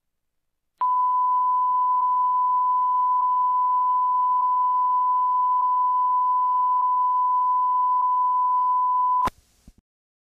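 Broadcast test tone, a single steady beep sounding with the colour bars at sign-off. It starts about a second in, holds unchanged for about eight seconds, and cuts off with a click near the end.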